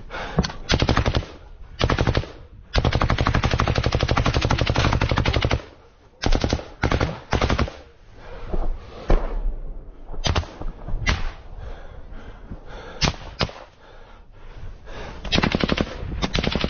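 Close automatic gunfire in bursts: two short bursts, then one long burst of about three seconds, two more short bursts, then scattered single shots and another burst near the end.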